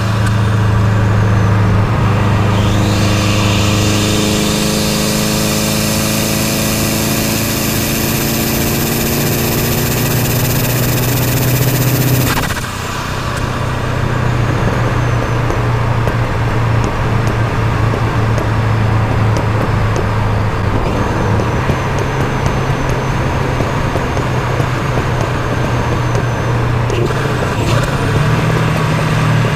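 Exhaust of a 2004 Subaru Impreza WRX's turbocharged flat-four, heard at the tip of its decat straight-through system while driving. The engine pulls in one gear with its note slowly rising for about twelve seconds, drops off suddenly, then runs on at a steadier cruise.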